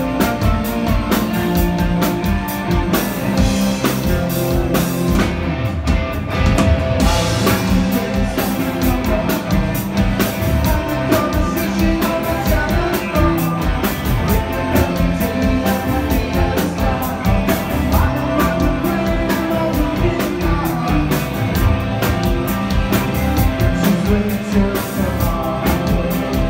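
Rock band playing live: drum kit keeping a steady beat under guitars, with a voice singing.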